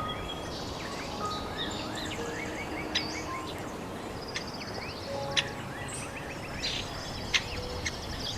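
Several birds singing and calling: chirps, quick trills and a few sharp chip notes, over a steady low background noise.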